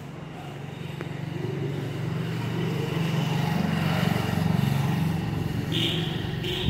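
Motorcycle passing by on the road, its engine growing louder, loudest about four seconds in, then fading away. Two short high beeps near the end.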